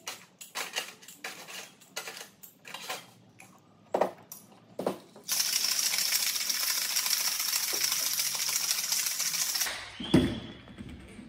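Ice cubes clinking one at a time into a stainless steel cocktail shaker. About five seconds in, a steady rattle of ice being shaken hard inside the shaker begins and lasts about four seconds. A single knock comes about ten seconds in.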